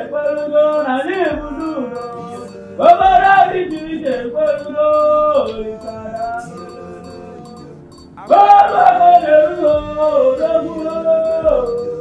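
Background film music: a melody in long held and gliding phrases over soft accompaniment, swelling twice, about three seconds in and again about eight seconds in.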